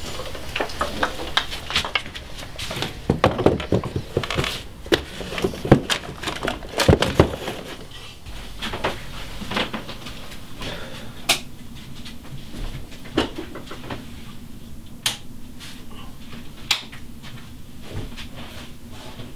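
Irregular knocks and clicks of things being handled and moved about in a small room, busiest and loudest in the first half, then only occasional single clicks over a low steady hum.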